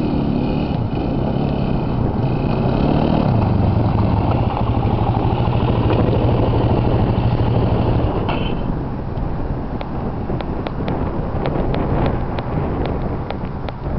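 Quad bike (ATV) engine running, its note shifting in pitch over the first few seconds and then holding steady. About eight seconds in, the steady engine note gives way to a rushing noise with scattered sharp clicks.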